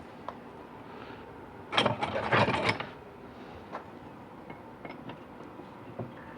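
Ratchet torque wrench ratcheting in a quick burst of clicks for about a second, starting almost two seconds in, tightening transmission pump bolts to their 18 ft-lb spec in a crossing pattern. A few scattered light clicks follow.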